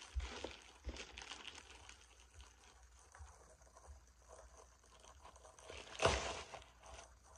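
Faint rustling and crinkling of plastic packaging being handled, with scattered small clicks and one louder crinkle about six seconds in.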